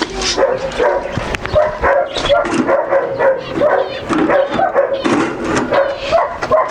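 Dogs whining and yipping in short repeated calls, with small birds chirping faintly in the background.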